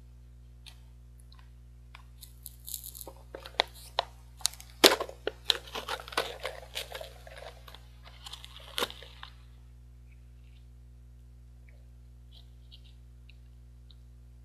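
Foil seal of a Pringles can being peeled off by hand: a run of crackling tears and sharp clicks, loudest about five seconds in, with a last sharp crack before it stops a little past halfway.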